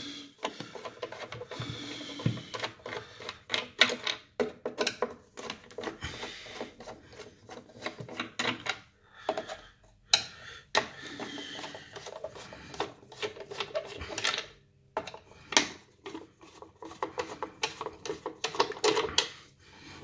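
Screwdriver turning out the cover screws of a plastic electrical enclosure: a run of irregular clicks and scrapes of metal on plastic, with the plastic lid handled near the end.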